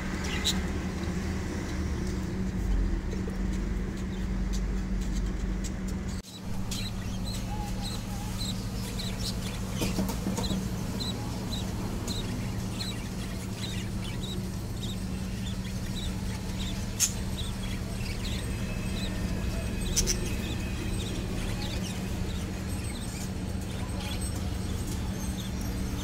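Young budgerigar chicks peeping: short, high, evenly spaced peeps, about two a second, over a steady low hum, with two sharp clicks in the second half.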